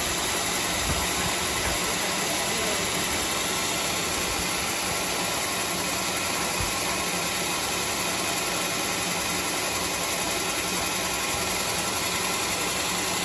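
Homemade band sawmill running steadily, a constant mechanical noise with no pauses.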